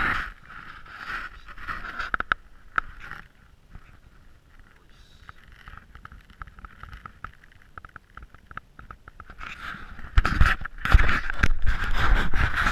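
Handling noise in a plastic kayak: rough rubbing and scraping with sharp knocks at the start, a quieter stretch with scattered ticks, then a loud stretch of rubbing near the end.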